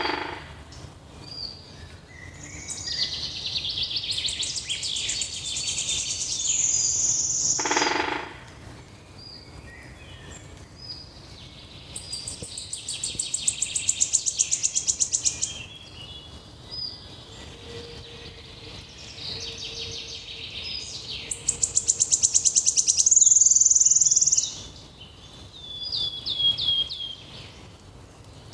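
Several songbirds singing in a forest: short repeated high notes, and twice a long, fast trill that grows louder before stopping, over a soft steady background.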